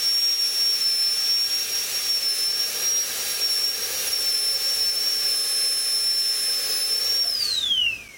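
High-speed dental handpiece running with a steady high whine over a hiss while its bur bevels the cavity margins of a plastic typodont molar. About seven seconds in it is let off and the whine falls steeply in pitch as the turbine spins down.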